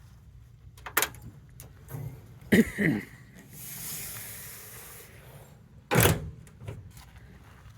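Handling of a metal truck-bed toolbox: a few clicks, then a loud creaking scrape about two and a half seconds in, a hiss lasting about two seconds, and a loud knock about six seconds in.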